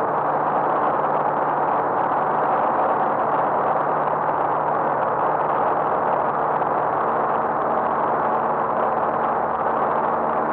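Light aircraft's piston engine and propeller running steadily in flight, heard from inside the cabin as a constant drone with a steady low hum beneath it.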